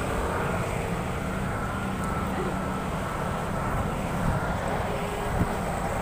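Road traffic passing close by: a steady engine rumble from passing vehicles, including a sedan and a small box truck.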